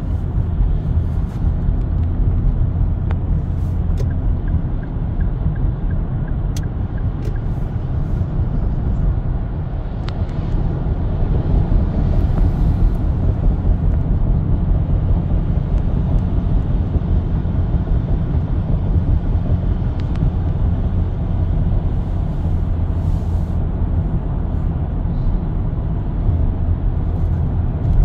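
Steady in-cabin road noise of a car cruising at highway speed: a constant low rumble of tyres and engine with wind hiss, plus a few faint clicks.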